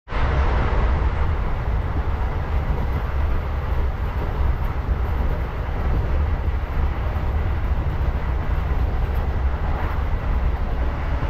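Inside a local passenger train coach running at speed, about 95 km/h: a steady rumble of wheels on the rails with running noise coming in through the open windows.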